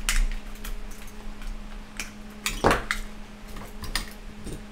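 Scattered clicks and light metallic clinks of wire cutters and small meter parts being handled while a circuit board is freed from an old clamp meter's case, with one louder click about two and a half seconds in. A faint steady hum sits underneath.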